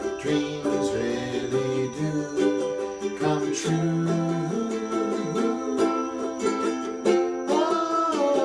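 Ukulele strumming chords in a steady rhythm.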